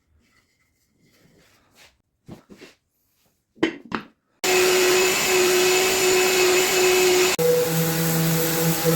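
A few short scrapes of light handling, then a loud electric motor of a workshop tool or vacuum switches on suddenly and runs steadily with a fixed whine; about three seconds later its tone shifts lower and it keeps running.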